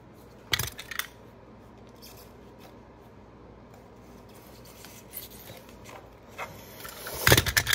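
Knife trimming the edges of cork filler sheet on a boot bottom: short cutting and scraping strokes, with a few sharp clicks about half a second in and a cluster of louder clicks and knocks near the end.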